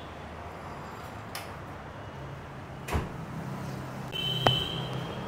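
Workshop sounds over a steady low hum: a sharp knock about three seconds in, then a short high-pitched tone lasting about a second with a click in the middle of it.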